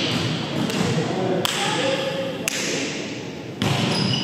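Three sharp thuds of a volleyball, about a second apart, ringing in a gymnasium hall.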